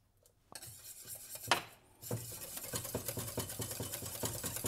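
A wire whisk beating egg-and-butter béarnaise sauce in a small stainless steel saucepan, a fast, even clatter of the wires against the pot from about two seconds in. Before it, a spoon scrapes in a small dish and clinks once.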